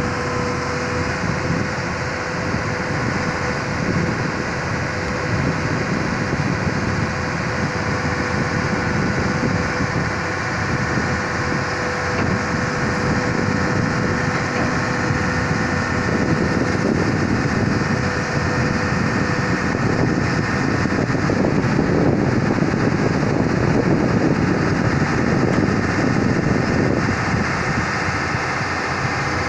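Hyundai 215 crawler excavator's diesel engine running steadily as the machine is driven off a lowbed trailer. It grows louder for a stretch in the second half and eases back near the end.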